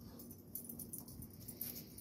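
Two dogs scuffling on concrete, a Rottweiler and a blue pit bull: faint, scattered scratching and clicking from about half a second in, with no barking.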